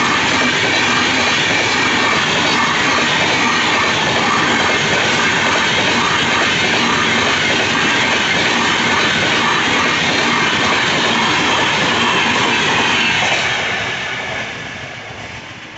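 Passenger express coaches rolling past at speed, a loud steady rush and rattle of wheels on rails. The sound starts to fade about 13 seconds in as the last coach goes by and recedes.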